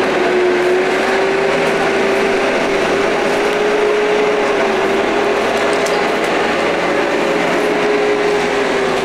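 A machine running steadily nearby: a loud, continuous drone with a hum that wavers slightly in pitch.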